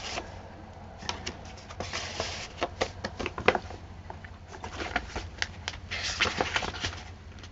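Paper pages of a handmade journal being turned and handled: rustling with many light clicks and taps, and a couple of longer rustles about two seconds in and again near six seconds.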